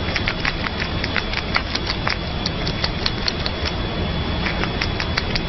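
Squirrel chewing a lemon slice: irregular crisp clicks and crunches, several a second, over a steady hiss.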